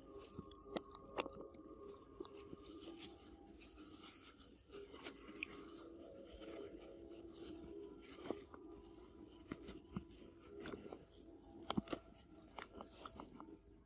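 A macaque biting and chewing a firm green fruit: soft crunches and scattered sharp clicks, with a few louder bites about a second in and near the end.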